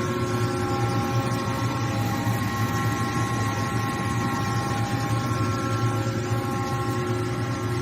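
Large CNC metal-spinning lathe running steadily: a constant low hum with several steady whining tones above it, and no change in speed.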